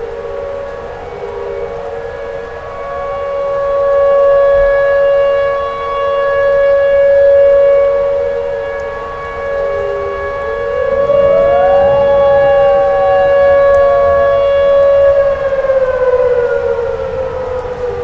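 Tornado warning siren wailing loudly: a steady high tone that swells and fades, joined about ten seconds in by a pitch that rises and then glides slowly back down.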